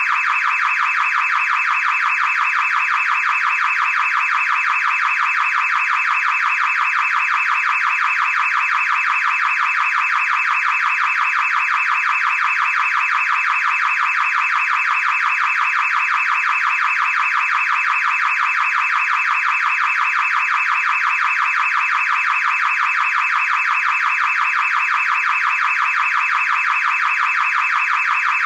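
Car alarm sounding without a break: a rapid, even pulsing tone that holds the same pitch and level throughout.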